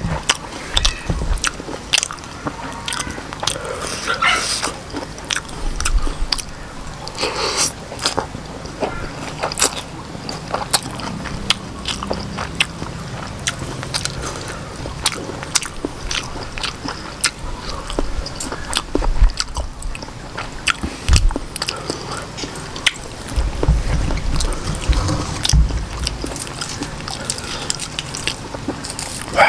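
A person chewing and biting a mouthful of octopus, Khmer rice noodles and raw greens, with many sharp, irregular crunches and wet mouth clicks.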